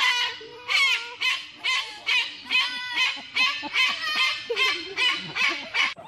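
White cockatoo screeching over and over in harsh squawks, about two calls a second, stopping abruptly near the end.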